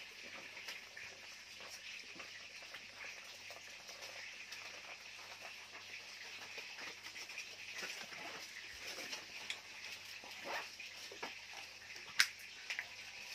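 Eating noises: wet chewing and lip-smacking, with small crackles of cooked lobster shell being pulled apart by hand and one sharp snap near the end.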